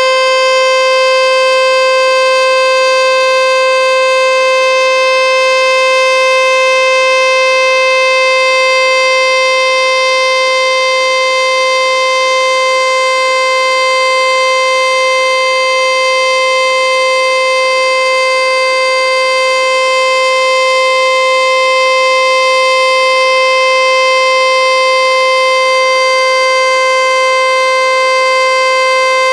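American Signal Corporation Tempest T-121 outdoor warning siren sounding its steady alert signal for a monthly test: one loud tone held at a constant pitch, with no rise or fall.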